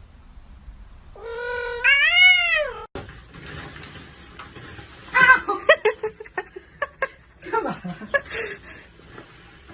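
A domestic cat gives one long, drawn-out meow that rises and then falls, about a second in. After a sudden cut it is followed by a run of short, choppy sounds.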